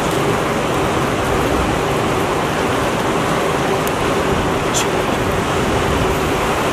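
Mountain river rushing steadily over rocks and rapids, a constant even noise.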